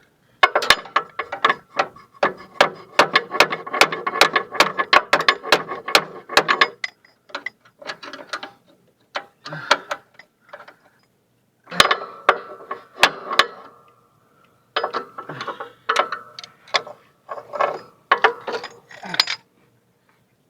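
Rapid metallic clicking and clinking in bursts, with a ringing note: hand tools working against steel pins and linkage on a lawn tractor's mower deck. A dense run of clicks lasts about six seconds, then comes in shorter bursts.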